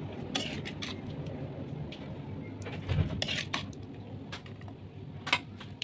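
Metal spatula clinking and scraping against an aluminium wok while cooked sambal is scooped out onto a plastic scoop: a series of sharp clicks, with a dull knock about three seconds in.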